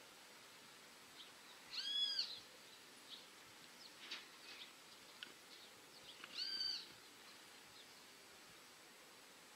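A bird calling twice, about four seconds apart: each call is a drawn-out note that rises and falls. Faint short chirps come between the calls.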